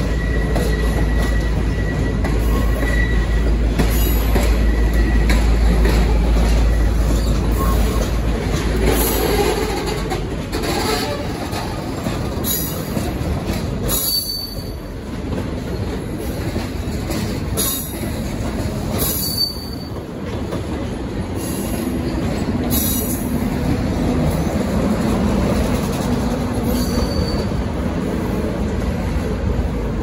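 Departing locomotive-hauled passenger train's carriages rolling slowly past over points, with a low rumble. Wheels squeal thinly now and then on the curving track, and there are a few sharp clacks over the rail joints and crossings.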